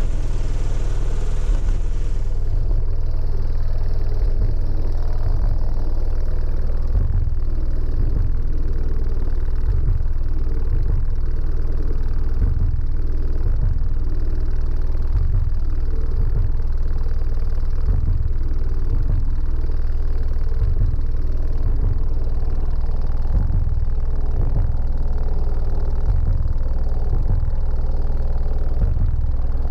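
A wall of Otis Designs 15-inch subwoofers in a van playing bass-heavy demo music at extreme level, heard from inside the van: a deep, constant bass pulsing with the beat, the higher parts of the music nearly drowned out.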